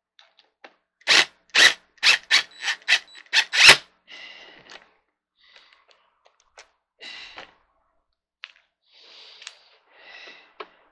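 Cordless impact driver tightening an armrest bolt on a gaming chair: a rapid string of short, loud bursts as the trigger is pulsed, from about one second in to about four seconds in, then a few quieter, briefer runs of the tool.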